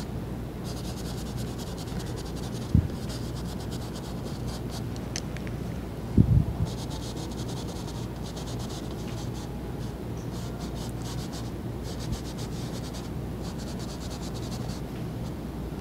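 Bristle brush scrubbing oil paint on canvas in quick back-and-forth strokes to blend the paint, in spells of a second or two. Two dull knocks, about three and six seconds in, and a steady low room hum.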